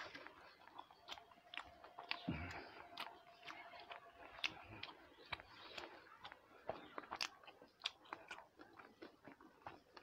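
Close-miked chewing with frequent irregular wet mouth clicks and lip smacks, while fingers mix soft food on a plate.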